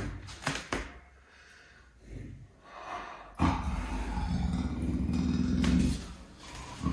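A big cat growling low and deep, starting about halfway in and lasting about two and a half seconds, with faint knocks before it. The two cats are growling at each other.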